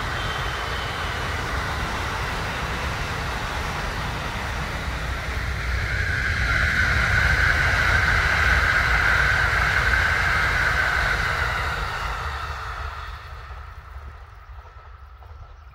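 Electric trains running past on an open-air line: the tail of a rapid express moving off, then the Kintetsu 80000-series Hinotori limited express passing at speed, its wheel and motor noise swelling to a peak and fading as it runs into the distance. Wind rumbles on the microphone throughout.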